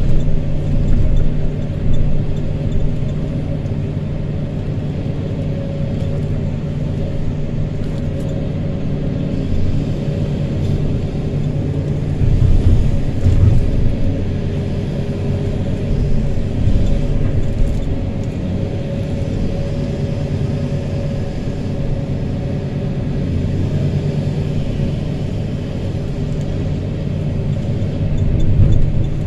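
Hydraulic excavator's diesel engine running steadily as the bucket scoops sand and dumps it into a dump truck. The drone swells for a few seconds at a time as the arm works under load.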